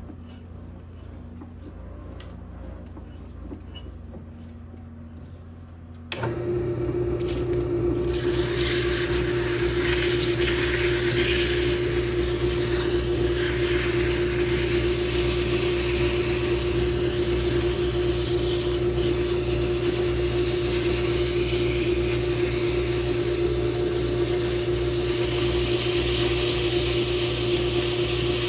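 Benchtop drill press motor switched on about six seconds in and running steadily with a hum, spinning a wooden drawknife handle held in its chuck. From about two seconds later, sandpaper is pressed against the turning handle, adding a steady rasping hiss.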